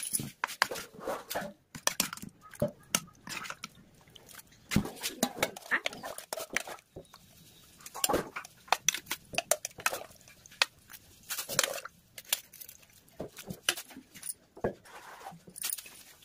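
Stainless steel ladle, pot and bowls clinking and scraping as curry is served, an irregular string of sharp metallic clinks.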